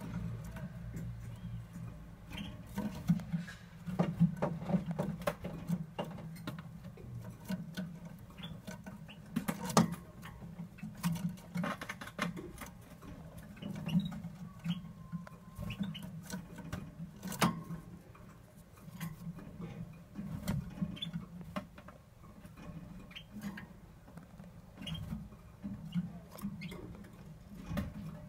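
Scattered small clicks, taps and scratches from a yellow topaz canary moving about its perch and cage, over a low rumble. No song.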